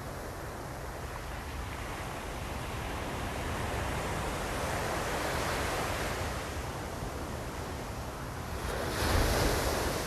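Ocean surf washing in, a steady rush that swells around the middle and surges louder about nine seconds in as a wave breaks.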